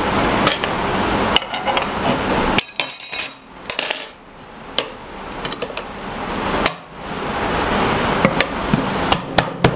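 Magnetic insert rings being fitted by hand into a router table's insert plate. They rub and scrape as they are turned to find their notch, with scattered clicks and taps as they seat.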